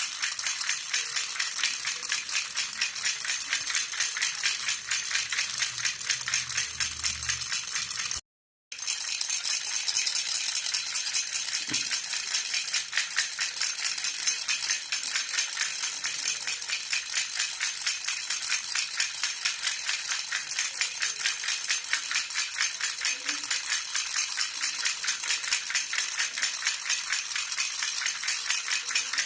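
Silver jhunjhuna, a metal baby rattle, shaken continuously in a fast, steady jingling rhythm. The sound cuts out briefly about eight seconds in.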